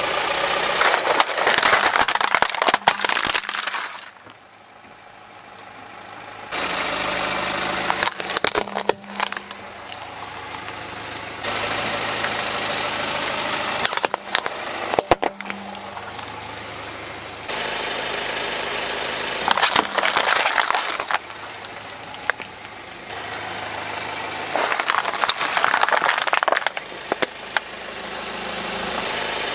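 A slowly rolling car tyre crushes plastic toys and water-bead-filled plastic bottles in a run of short cuts: bursts of cracking and crunching plastic over the car's steady engine hum.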